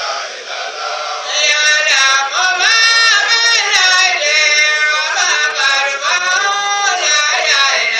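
A man singing a chant-like melody into a handheld microphone, his voice strong and clearly pitched, with the singing swelling up about a second and a half in.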